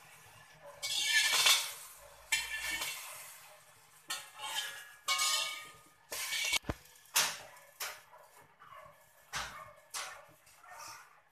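A slotted metal spatula scraping and sweeping around an empty metal wok in a series of strokes, longer ones at first and shorter, quicker ones in the second half, as the wok is dried on the heat before the oil goes in.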